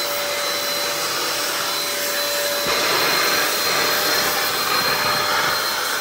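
Euro Fine EF6239 1000-watt handheld vacuum cleaner running with a steady high whine, its hose and brush nozzle working on a sofa cushion. A little under three seconds in it gets slightly louder and its lower tone drops away.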